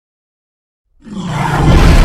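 Silence, then about a second in a deep Tyrannosaurus rex roar sound effect starts abruptly and swells loud.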